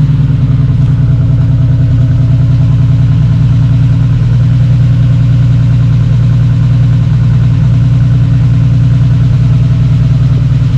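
Holden VL Turbo Commodore's turbocharged straight-six (Nissan RB30ET) idling steadily and loudly on a freshly fitted timing belt, running smoothly with no odd noises.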